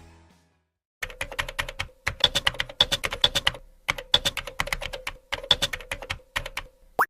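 Fast keyboard typing: bursts of rapid key clicks starting about a second in, over a faint steady hum.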